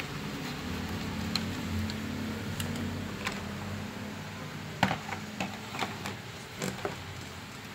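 Plastic toy fire truck being taken out of its cardboard box packaging: scraping and handling noise as its plastic retaining fasteners are worked loose, then a quick run of sharp plastic clicks and knocks as the truck is lifted out and set down, starting about five seconds in.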